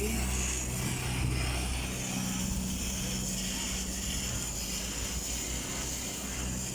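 A steady, unchanging low engine hum with a constant hiss over it.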